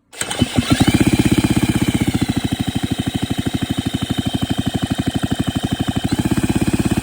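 Pioneer Farm chainsaw engine being turned over mechanically at a steady rate of about a dozen pulses a second, with a motor whine that rises as it starts and falls near the end, to test the baked ignition coil for spark. The engine does not fire. The coil gives consistent spark.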